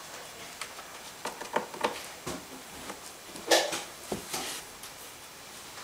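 Cardboard box scuffing and knocking as a cat noses and rubs at its corner: a run of short scrapes and taps, the loudest about three and a half seconds in.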